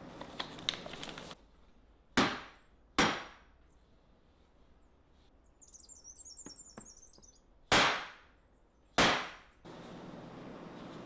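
Four sharp knocks in two pairs, each with a short ringing fade, with a brief faint high chirping between the pairs.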